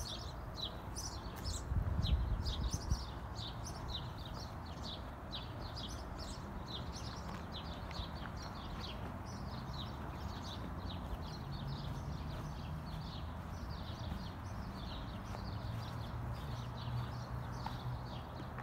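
A flock of small birds chirping steadily, with many short, quick chirps overlapping. A brief low rumble comes about two seconds in.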